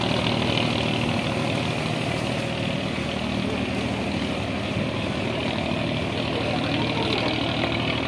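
Fishing boat's engine running steadily: an even low drone with a hiss above it.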